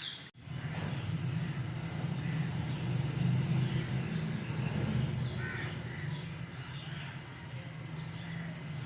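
Birds calling with short, scattered chirps and squawks over a steady low hum.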